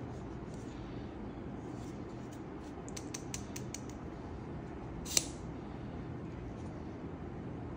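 Unboxing handling noise from packaging and accessories being handled: a quick run of light clicks about three seconds in, then one sharp click about five seconds in, over a steady low room hum.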